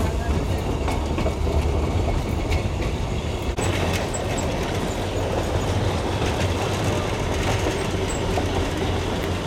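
Darjeeling Himalayan Railway narrow-gauge toy train running along the track, heard from on board: a steady low rumble of the wheels and carriage with light clacking from the rails.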